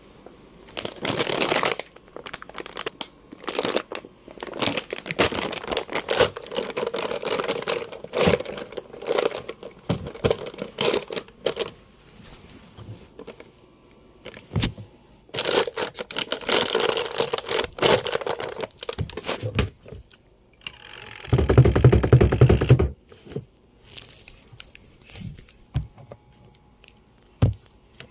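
Paper-and-plastic sack of Tide powder detergent crinkling and tearing as it is handled and opened, in irregular bursts. About three quarters of the way through comes a louder, rougher rush lasting about a second and a half.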